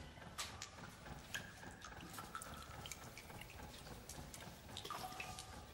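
Faint water dripping in a small stone room: scattered, irregular drips and small clicks over a low hiss.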